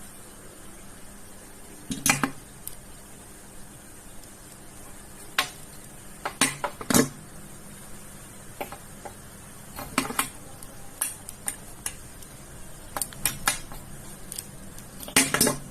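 Irregular sharp clicks and small knocks from handling a crimping tool and a UTP network cable while the cable's outer jacket is cut off and the end is worked, in several short clusters with quiet between.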